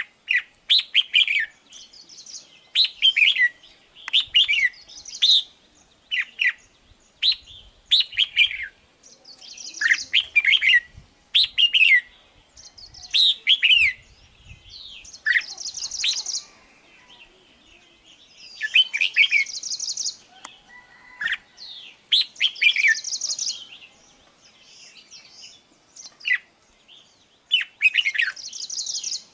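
Red-whiskered bulbul singing: a quick run of short whistled phrases, about one every second, with harsher buzzy notes every few seconds.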